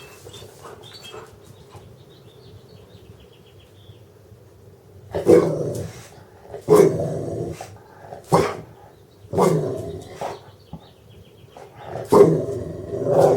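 A dog barking: about five loud barks spaced a second or two apart, starting about five seconds in, the last one drawn out longer.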